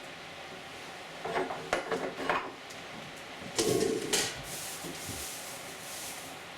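Clattering, scraping knocks of milking equipment being handled and set down, in two short bouts, the second louder.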